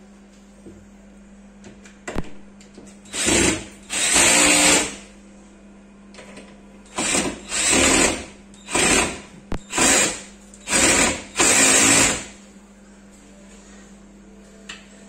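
Cordless drill run in about nine short bursts at a cabinet hinge, each under a second long, from about three seconds in until about twelve seconds in.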